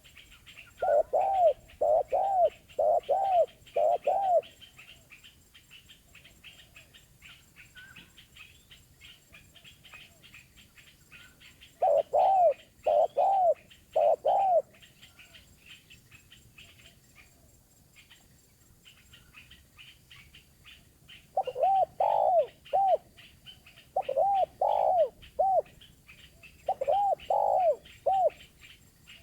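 Spotted dove cooing in five phrases of three or four arched notes each, with long pauses between phrases. Small birds chirp steadily behind it.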